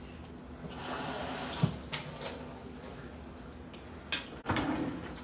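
Kitchen tap running into the sink for a couple of seconds, with a few knocks near the end.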